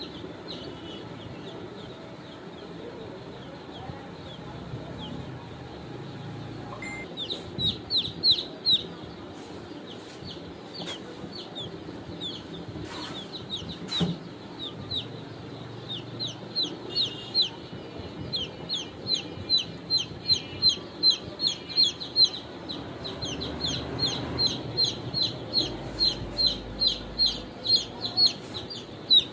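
Chicks peeping: a steady stream of short, falling high-pitched cheeps, sparse and faint for the first several seconds, then loud and coming several times a second.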